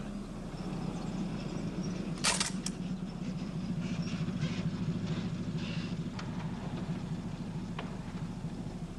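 A military car's engine running steadily as the car drives up. A single sharp crack comes about two seconds in, louder than the engine, and a few light clicks follow later.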